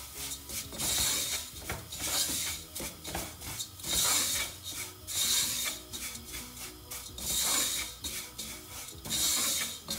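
Wooden spoon stirring and scraping fine vermicelli and flour as they toast in a little oil in a nonstick pot, a rasping scrape with each stroke, repeated every second or two.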